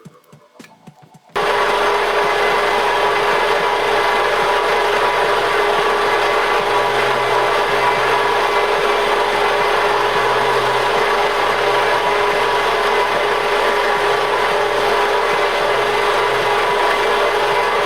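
Circular vibrating sieve of the outer-ring type starts abruptly about a second in and runs steadily: a loud, even machine noise with a steady hum.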